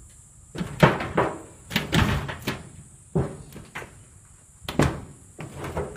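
Car body panels banging and crunching as an elephant bull batters the vehicle with its tusks and head: a string of loud, irregular metal bangs in bursts, each ringing briefly.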